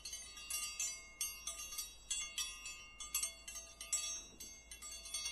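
Soft, tinkling bell-like chimes: many bright, high notes struck in quick, irregular succession, each ringing briefly, as in a light chime outro jingle.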